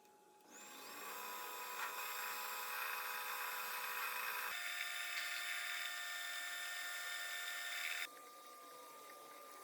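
A power tool working wood: a steady motor whine over a rough rasping noise. It starts about half a second in, changes character abruptly midway and cuts off sharply near the end.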